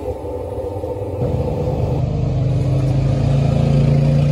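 A motor vehicle's engine running, its low hum rising slowly in pitch and getting louder from about a second in.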